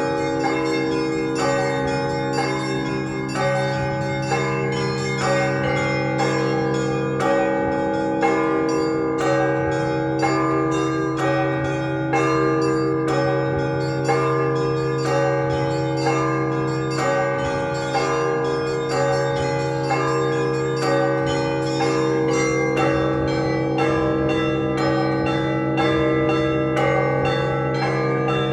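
Festive Russian Orthodox peal on a belfry of 48 bells: deep bells ringing on continuously underneath while smaller bells are struck in a fast, dense pattern several times a second.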